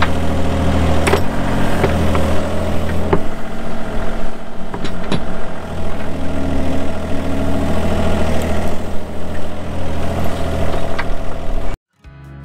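Mini excavator's diesel engine running steadily as it digs, with a few sharp knocks and a brief higher tone partway through. The sound cuts off abruptly near the end.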